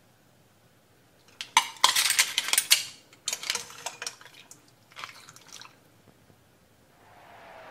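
Metal ladle clattering and scraping in a stainless steel pot of asari clam miso soup, with a little dripping as the soup is ladled into a bowl. The clatter comes in three spells, loudest about two seconds in.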